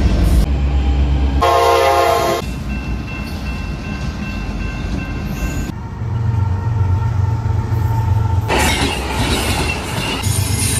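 Trains passing close by in a string of abruptly cut clips: diesel locomotives rumbling past, with a multi-tone locomotive horn blast lasting about a second starting about a second and a half in. Near the end a passenger train rushes past with an even roar of wheel and air noise before the diesel rumble returns.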